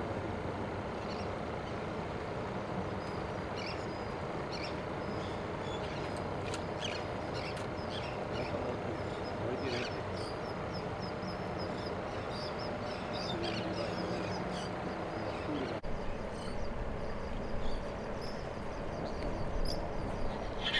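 Steady outdoor rumble of traffic and open air, with scattered short, high bird chirps through most of it and a few sharp clicks.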